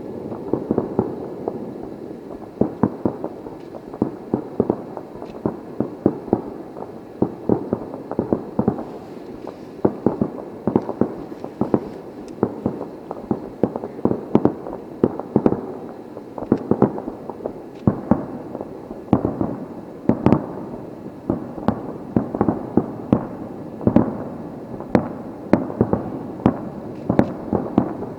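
Aerial firework shells bursting in a dense finale barrage: sharp bangs come several times a second, with crackle and echo between them.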